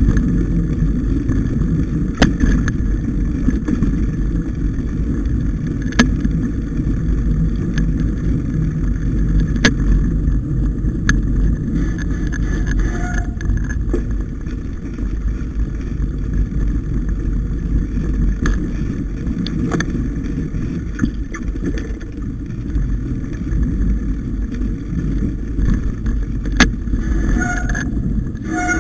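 Mountain bike riding a snowy forest trail: a steady low rumble of tyres and wind on the microphone, with several sharp knocks and rattles as the bike goes over bumps.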